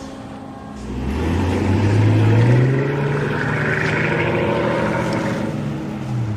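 A vehicle engine revving up about a second in, holding a steady high note, then easing off near the end.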